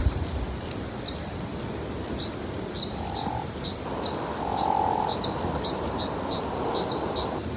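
Hummingbird chirping: short, high chirps repeating a few times a second over a steady low background noise.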